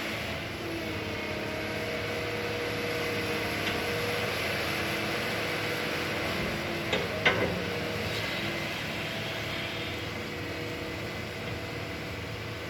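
Excavator running at work, a steady engine drone with a few held pitches that shift slightly as it works. Two sharp knocks come close together about seven seconds in.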